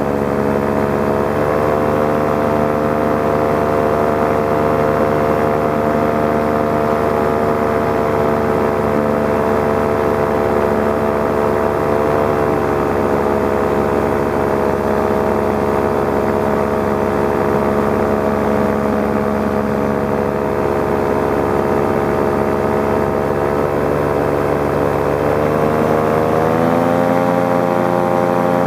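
Paramotor engine and propeller running steadily at cruise throttle. The pitch dips briefly about twelve seconds in and rises near the end as the throttle opens.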